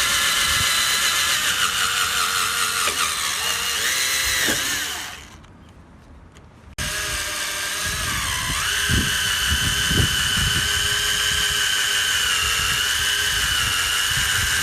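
Electric drill spinning a 500-grit sanding disc against a plastic headlight lens, its motor whine dipping in pitch as it is pressed on. It winds down about five seconds in, then starts up again suddenly about two seconds later and runs on steadily.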